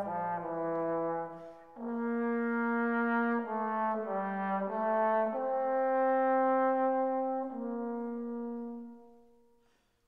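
Background music: a slow melody in long held notes, fading out near the end.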